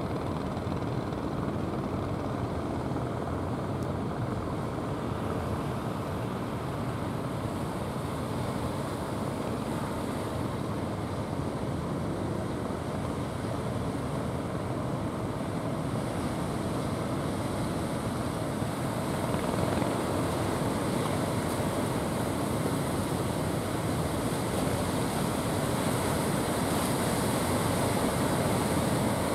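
Surf washing onto the beach with the steady drone of outrigger fishing boats' engines coming in toward shore. It grows a little louder about two-thirds of the way through.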